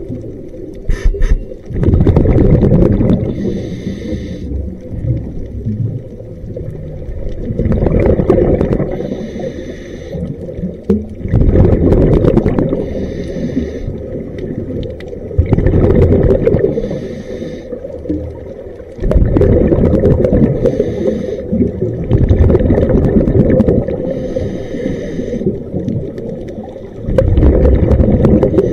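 Scuba regulator breathing heard underwater: a short hissing inhalation through the regulator, then a loud rush of exhaled bubbles lasting a couple of seconds, the cycle repeating about every four seconds.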